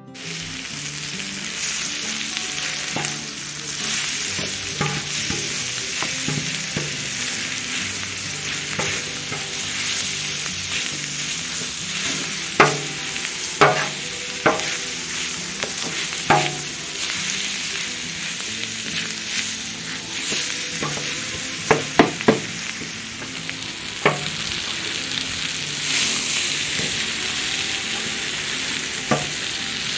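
Food sizzling in a frying pan while being stirred, with a steady hiss and occasional sharp knocks of the spoon against the pan, bunched in the middle of the stretch.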